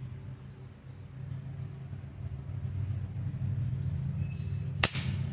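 A pellet gun fires once near the end: a single sharp crack. Under it runs a steady low rumble that grows louder.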